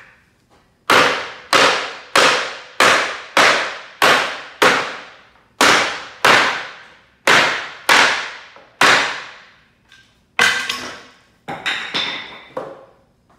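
Sledgehammer blows on pallet wood, knocking the nailed bottom deck boards off the runners: about a dozen hard, ringing strikes roughly every half second to second, with a short break partway. Near the end, lighter knocks and a clatter of loosened boards being handled.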